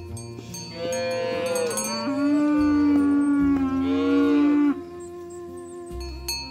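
A cow mooing: one long drawn-out call of about four seconds, starting about a second in and wavering in pitch, over background music.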